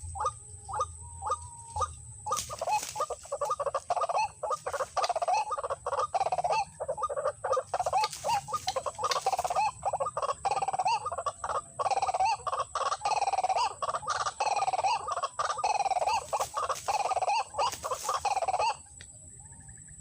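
White-breasted waterhen (ruak-ruak) calls: a few short notes, then from about two seconds in a long run of rapidly repeated call notes that stops abruptly near the end.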